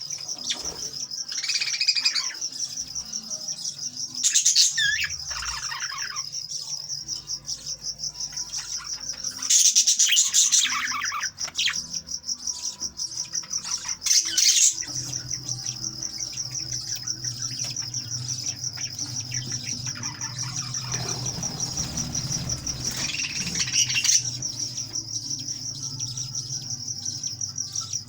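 Small pet parrots chirping in a colony: a continuous rapid, high-pitched chatter with louder squawking calls breaking in every few seconds.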